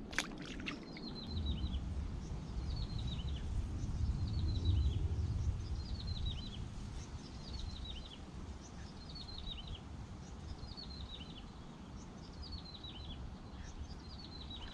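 A bird repeating a short, falling chirp phrase about once a second, over a low rumble that swells about four to five seconds in.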